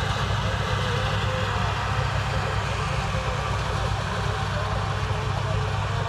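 Tractor engine running steadily while it pulls a wheat-harvesting machine that blows chaff into a trailer: a continuous low engine drone under an even mechanical rush.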